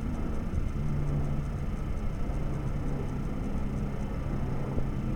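Helicopter flying overhead out of sight: a steady low drone over a rumble, holding even throughout.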